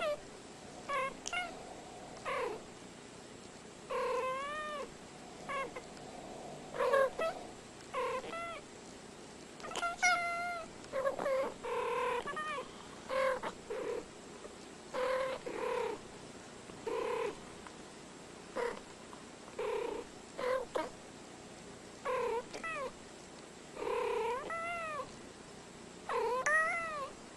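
A cat meowing over and over: short calls, each rising and falling in pitch, about one a second.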